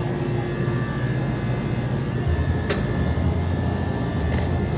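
Steady low rumbling background noise with a single sharp click a little under three seconds in.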